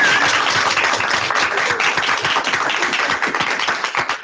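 A group of people clapping and applauding, with a short wavering whistle at the very start.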